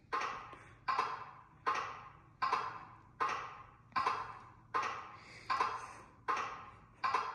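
NIU MQI GT scooter's turn-signal sound, a short knock-like click repeating about every three-quarters of a second, each one starting sharply and fading quickly.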